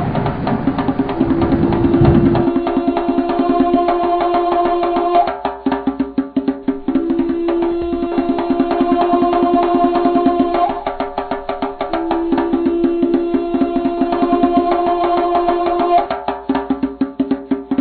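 Music in which a long, steady held note alternates every few seconds with passages of rapid, evenly spaced drum strokes. The opening two seconds are fuller and lower.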